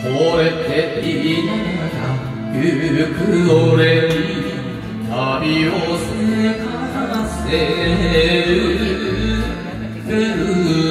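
A man singing a Japanese kayōkyoku song into a microphone over a karaoke backing track.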